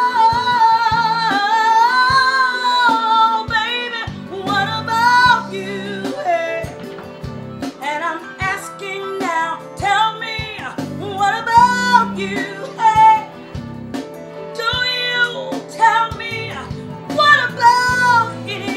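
A woman singing long, wavering notes over instrumental backing music.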